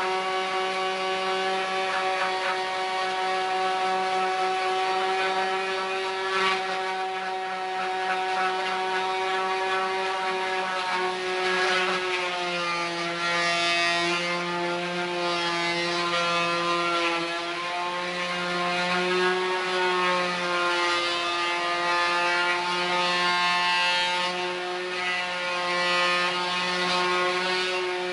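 Electric palm sander running steadily while sanding a wooden board: a constant pitched motor hum over the rasp of sandpaper on wood. The pitch dips slightly about halfway through, when the sander is pressed down with both hands.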